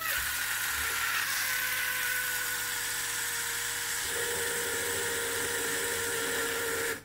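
Xiaomi Mijia Pinlo portable blender's 70-watt battery motor running, its blades spinning through a watery mix of peppers and onion with a steady whine. The sound stops abruptly at the end.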